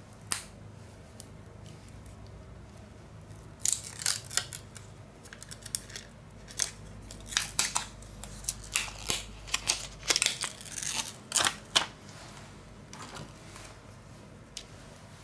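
Small hand tools and plastic parts of a smartphone clicking and scraping as they are handled during a screen repair: a run of sharp irregular clicks, thickest in the middle stretch, over a low steady hum.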